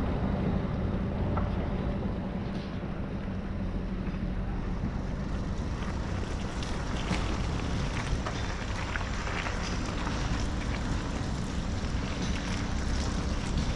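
Wind rushing over the microphone during a ride on a rough dirt trail, with a steady low rumble. From about halfway through come scattered clicks and rattles from the ride over the uneven ground.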